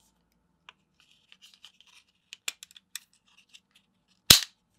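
Light clicks and scrapes of a Hi-Capa airsoft pistol's guide rod, recoil spring and short-stroke buffers being worked into the slide by hand. One sharp, loud click comes a little past four seconds in as the assembly seats in the slide.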